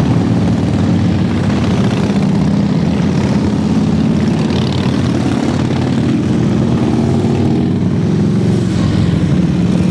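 A vehicle engine running steadily, a loud continuous drone.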